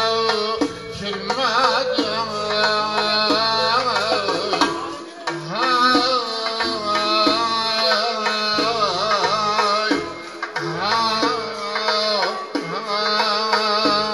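Live folk music: an ornamented melody with a wavering, bending pitch over a steady hand-drum rhythm.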